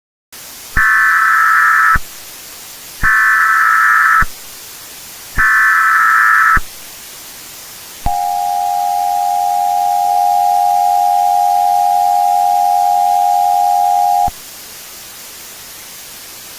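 Emergency Alert System alert tones: three short SAME data header bursts, each about a second long, followed by the two-tone attention signal held steady for about six seconds, over a constant hiss of static.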